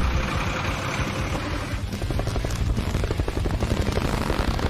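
A vehicle engine running with a fast, even rattle.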